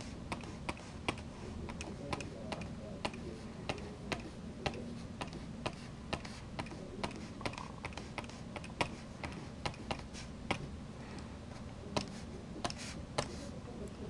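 A stylus nib tapping and clicking on a graphics tablet as feather brush strokes are stamped down: short, light clicks about two a second, unevenly spaced, over a low steady hum.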